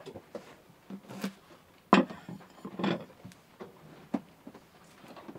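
Scattered light knocks and clicks of things being handled and set down, with one sharp knock about two seconds in and a second clatter about a second later.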